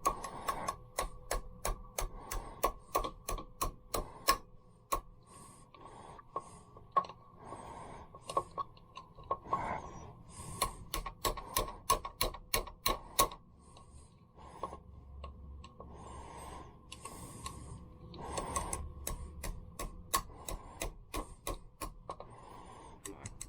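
Ratchet wrench clicking in runs of short, sharp clicks, about two to three a second, as stuck bolts on a small Mercury outboard are worked loose. A few brief hissy noises come between the runs.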